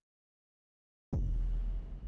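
Silence, then about a second in a sudden deep, rumbling boom that slowly fades: a cinematic sound-design hit.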